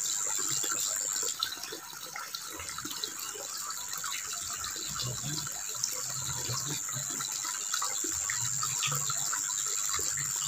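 Water running steadily, a trickling, splashing flow, with small scattered ticks. A thin, high, steady whine sits above it and breaks off briefly about a second in.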